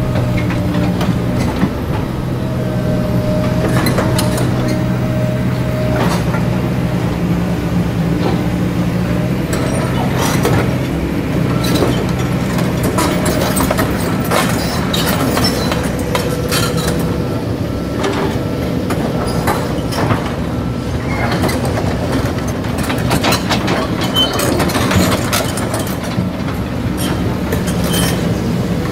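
Kobelco SK200 hydraulic excavator's diesel engine running steadily as it works, digging and loading dirt into a dump truck, with many sharp knocks and clanks from the bucket, boom and dirt.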